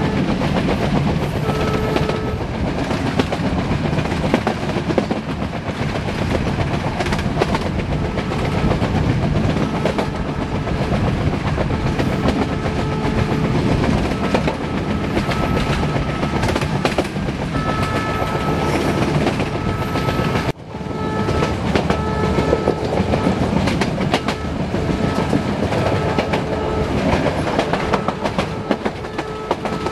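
Metre-gauge train running at speed, heard from an open coach door: a steady rumble and clattering of wheels over the rail joints. The diesel locomotive's horn sounds in about nine separate blasts, each one to two and a half seconds long.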